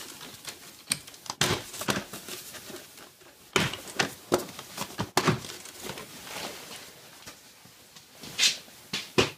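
Plastic top engine cover of a VW 2.0 TDI diesel being popped off its mounts and lifted away: a string of sharp plastic knocks and snaps with rustling in between, the loudest near the end.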